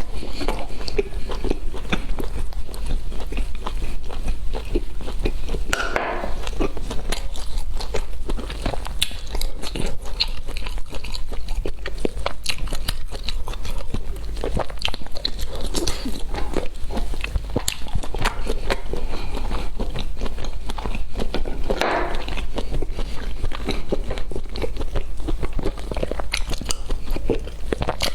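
Close-up eating sounds: crunchy food being bitten and chewed, with many crisp, irregular crunches throughout.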